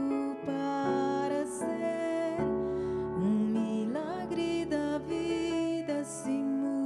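A woman singing a song with electronic keyboard accompaniment, holding notes and sliding upward about three seconds in.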